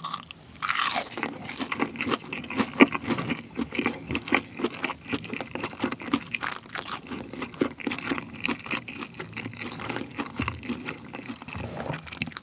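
Close-miked crunch of a bite into a fried piece coated in masala sauce about a second in, followed by steady crunchy chewing with many small crackles.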